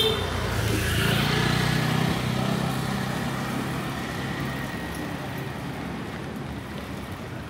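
A motor vehicle passing on a wet city street: its engine hum and tyre hiss swell about a second in and fade away over the next few seconds, over a steady hiss of light rain. A sharp click comes right at the start.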